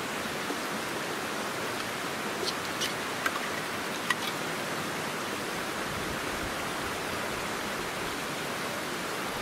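Steady rushing of a stream flowing nearby, with a few short, light clicks about two to four seconds in.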